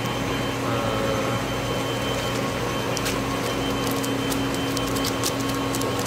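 Steady machine hum and rushing of a shrimp pond's aeration equipment, the water churning with foam. Scattered light clicks come in over the second half.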